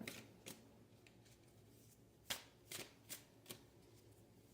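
Deck of oracle cards being shuffled by hand: faint, scattered short card flicks and slaps. There is one about half a second in and a quick run of four or five in the second half.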